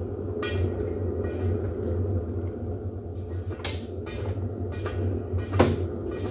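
Pottery wheel motor humming steadily while wet, slip-covered hands work a clay jug on the spinning wheel head, with a few short wet slaps and squelches of hand on clay, the loudest near the end.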